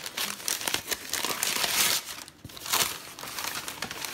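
Tissue paper crinkling and rustling in irregular bursts as it is pulled off a cardboard box.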